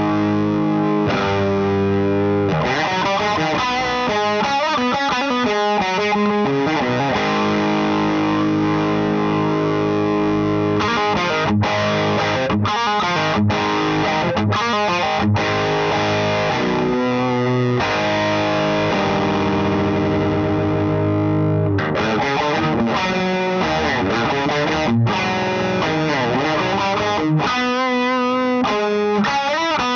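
Electric guitar played through an LPD Pedals Sixty8 Deluxe pedal into a Satellite Neutron amp, with a distorted tone. Held, ringing chords alternate with faster riffing, and a run of short chord hits is cut off abruptly about halfway through.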